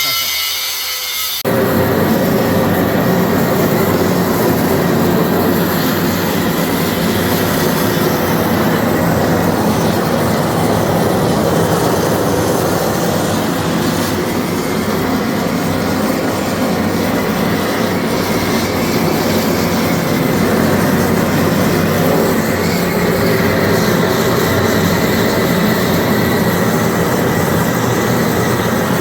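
A power tool or shop machine kicks in suddenly about a second and a half in and then runs loudly and steadily, a grinding noise with a few steady tones in it.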